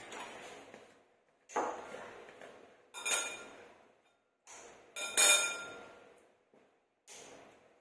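A ceramic bowl knocked five times at uneven intervals while all-purpose cream is emptied from a foil pouch into it. Each knock is a sharp clink that rings briefly, and the second and fourth ring most clearly.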